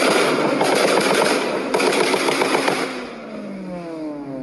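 Car exhaust crackling and popping in rapid strings for about the first three seconds, then the engine's revs falling away in one steady downward sweep.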